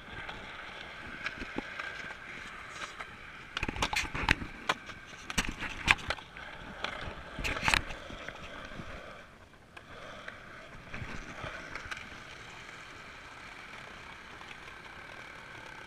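Skateboard wheels rolling steadily over concrete, with a cluster of sharp clacks and knocks from the board between about four and eight seconds in.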